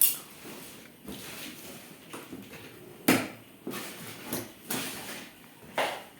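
Several sharp knocks and clatters of things being handled and set down. The loudest comes right at the start and another about three seconds in, with a third near the end and lighter taps in between.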